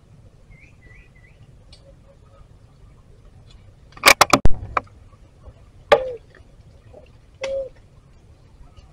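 A quick run of four or five loud, sharp cracks, then two more single cracks, each followed by a brief low tone. Faint bird chirps in the first second or so.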